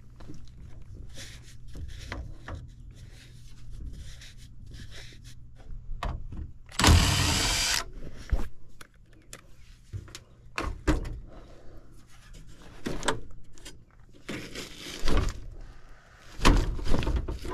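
Hands-on work noise: scattered knocks and clunks, with two louder scraping or rasping noises about a second long, one about seven seconds in and one about fifteen seconds in, over a steady low hum.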